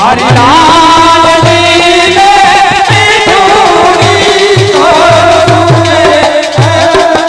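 Gujarati folk devotional kirtan music: a wavering, sustained melody line over a drum beat.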